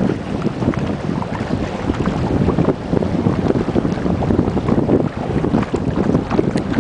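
Wind buffeting the microphone out on open, choppy sea: a dense, uneven low rumble with scattered crackles.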